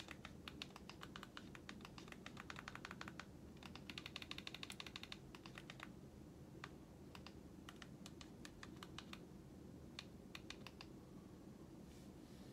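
Faint, rapid clicking of remote-control buttons, pressed in quick runs to step the cursor across an on-screen keyboard. After about five seconds the runs thin out to scattered single clicks.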